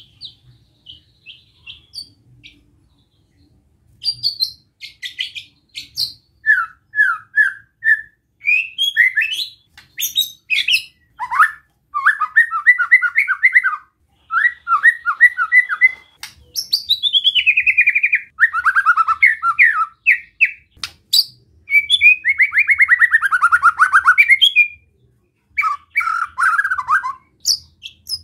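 White-rumped shama singing: a few faint chirps, then from about four seconds in a run of short whistled notes and rapid, harsh trills that slide downward in pitch. These are the 'besetan' calls that shama keepers play to provoke other male shamas.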